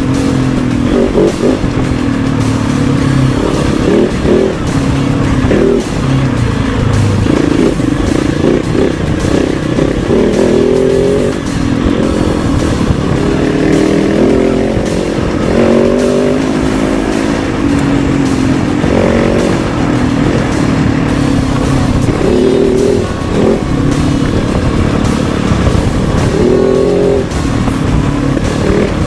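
KOVE 450 Rally motorcycle's single-cylinder engine under way off-road, its revs rising and falling again and again with throttle and gear changes.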